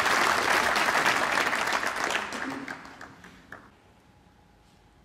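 Audience applause in a snooker arena, dying away over about three seconds to a last few scattered claps.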